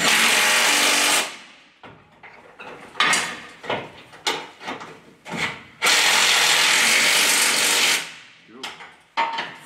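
Cordless impact wrench running up the bolts that hold a truck crossmember and spring hangers to the chassis rails. It rattles in three bursts: about a second at the start, a brief one around three seconds in, and a longer two-second run around six seconds in. Light clinks of metal and tools come between the bursts.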